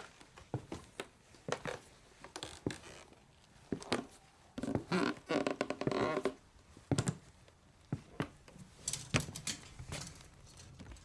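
Footsteps on a wooden stage floor: irregular, uneven steps and shoe knocks on hardwood boards, with a longer drawn-out scrape of shoes on the boards about five seconds in.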